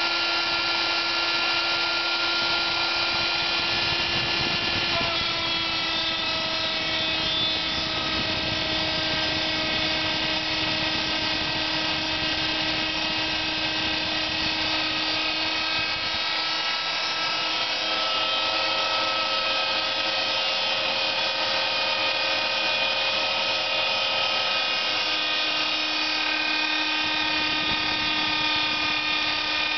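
CNC milling machine's spindle running with the end mill cutting into a white-faced board: a steady, high machine whine over a cutting hiss, its pitch shifting slightly a few times as the cut goes on.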